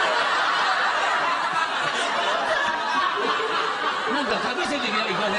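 Many people laughing continuously, mixed with some talk.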